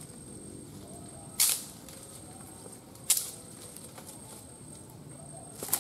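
A blade chopping into a woody tree stem: three sharp chops, spaced about one and a half to two and a half seconds apart.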